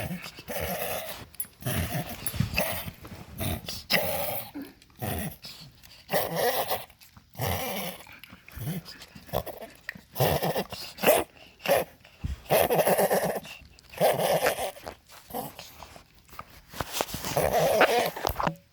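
Dog coughing repeatedly: harsh, hacking coughs in short bursts of about a second, one after another with brief pauses.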